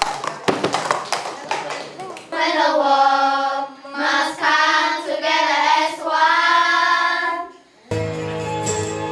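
Plastic cups tapped and knocked on wooden desks in a children's cup-rhythm game. About two seconds in, children's voices sing three slow phrases of long held notes. Near the end, instrumental music starts after a short gap.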